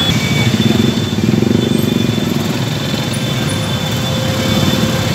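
Motorcycle engines running close by, several at once, with one passing near about a second in.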